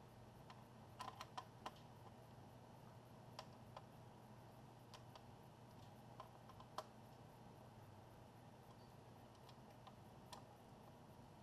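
Faint, scattered small clicks and taps of laptop parts being handled, irregular with a little cluster about a second in, over a low steady hum.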